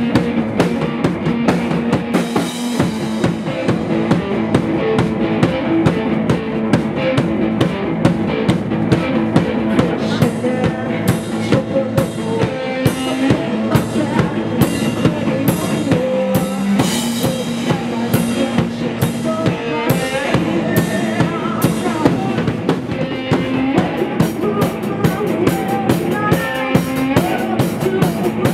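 Live rock band playing loud, with a drum kit keeping a steady beat under electric guitar and a male singer's voice at times.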